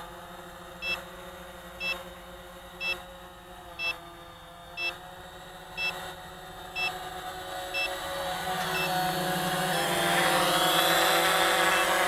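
Quanum Nova quadcopter's motors and propellers humming steadily in flight, growing louder from about eight seconds in with a whine that rises and falls. A short electronic beep repeats about once a second.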